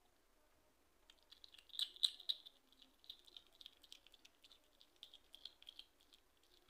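Hedgehog chewing a wart-biter bush cricket: faint, irregular crunching clicks, with a cluster of louder ones about two seconds in.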